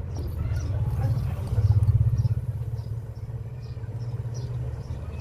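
A motor running with a rapid low pulsing hum, swelling louder about two seconds in and then settling back.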